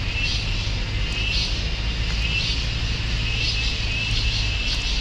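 Steady low rumble with a high, shrill insect-like chirring that swells and fades about once a second.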